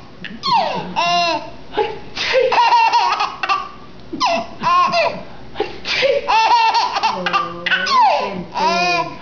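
A baby laughing in a string of high-pitched bouts, each under a second, about five or six of them with short pauses between.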